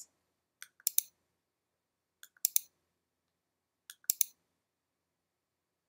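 Three short clicks of a navigation button's click sound effect, played as the button is pressed in the interactive PDF preview. The presses come about a second and a half apart, and each is a quick double click with a fainter tick just before it.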